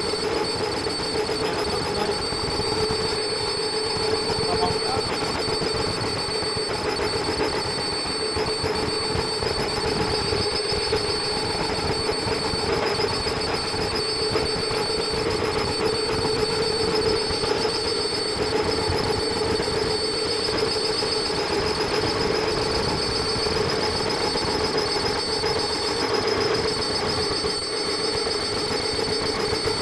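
Fully automatic face mask production machine running at speed: a steady, dense mechanical clatter with a constant hum and steady high-pitched whines.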